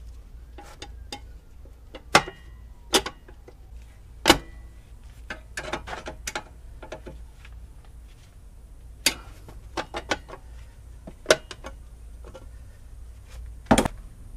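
Irregular sharp metal clicks and taps, about a dozen, some with a brief ring, as a metal cover plate is set over a 50-amp receptacle in a metal electrical box and screwed down with a screwdriver.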